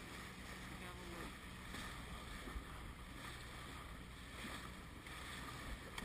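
Small motorboat's engine running steadily under way, with wind and water noise from the moving hull.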